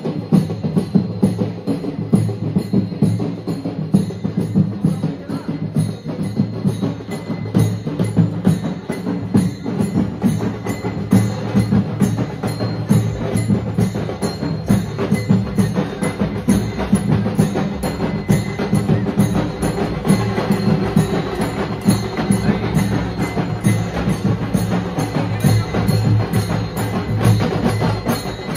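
Procession music: drums and other percussion beating a fast, steady rhythm without pause.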